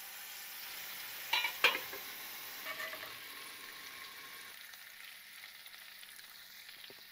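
Bass fillets sizzling steadily in a frying pan over low heat. There are two short, sharp clatters about a second and a half in.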